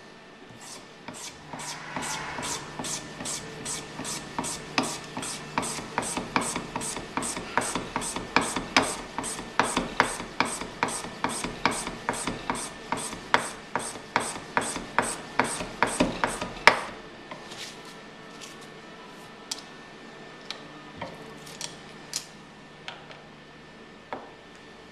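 Bagpipe reed gouger cutting cane: the blade carriage is worked over the cane in quick strokes, each a short rasping scrape as the blade takes off a shaving, about three a second. About 17 seconds in the gouging stops, and only a few light clicks follow.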